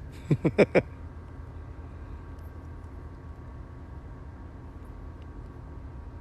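A man's voice in a few quick, short syllables right at the start, then a steady low rumble of background noise with no other events.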